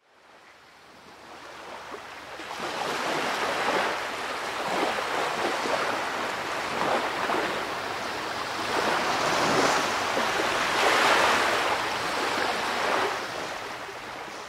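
Ocean waves washing in surf: a steady rushing noise that fades in from silence over the first couple of seconds, then swells and eases again and again.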